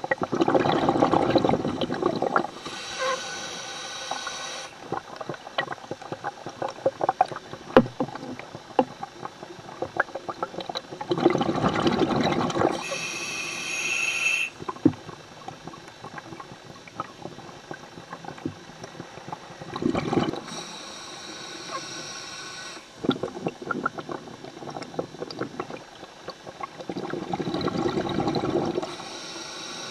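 Scuba diver breathing underwater through a regulator: four slow breaths, each a loud rush of exhaled bubbles paired with a hissing, whistling regulator draw, with faint crackling between breaths.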